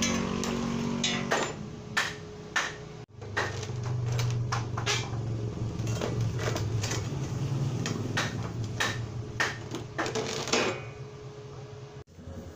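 Irregular sharp clanks and knocks from a metal frame and an exhaust fan being handled and fitted together on a workshop floor, about a dozen in all, over a low steady hum.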